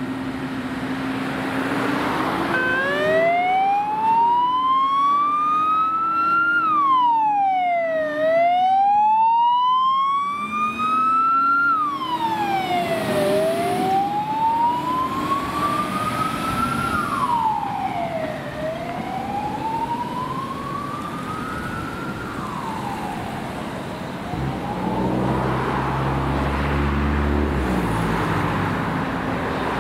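Fire truck siren wailing. Each cycle rises slowly for about four seconds and falls quickly, repeating about every five seconds, as the truck drives off on an emergency call. The siren fades away after about twenty seconds, and engine and road noise grow louder near the end.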